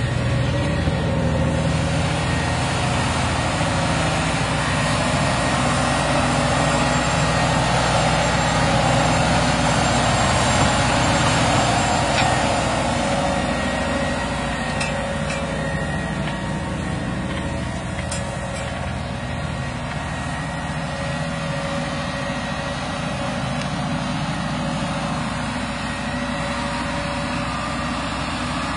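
Farm tractor's diesel engine running steadily while pulling a plough. It grows a little louder about eight to twelve seconds in, then eases back.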